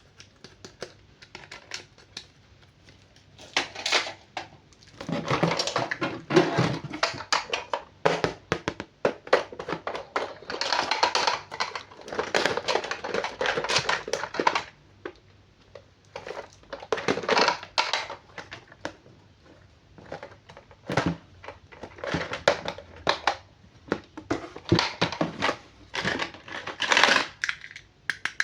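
Toy packaging being handled and opened: irregular bursts of plastic crinkling and crackling, separated by short quiet pauses.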